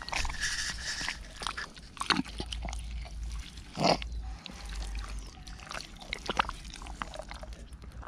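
A large knife blade digging and scraping into packed riverbank soil, with irregular crunches and knocks, the strongest about two and four seconds in.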